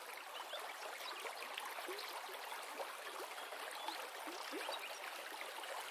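Flowing river water, soft and steady, with small gurgles and trickles throughout.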